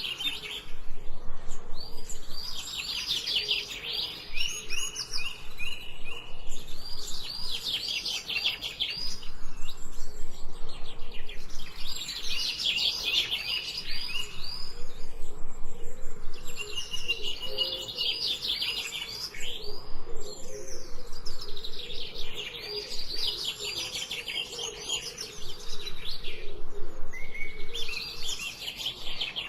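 Songbirds singing: repeated phrases of rapid, high chirping notes, each a couple of seconds long, with short pauses between.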